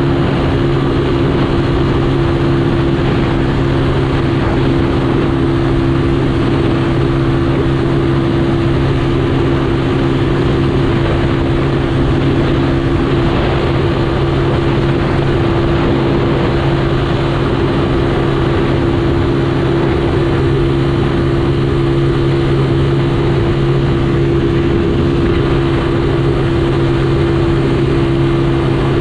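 Motorcycle engine running at a steady cruising speed, holding one constant note, over a continuous rush of wind and road noise.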